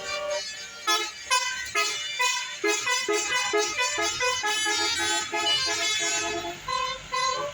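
Indonesian bus 'telolet' multi-tone horn playing a tune: a quick run of short horn notes that step up and down in pitch.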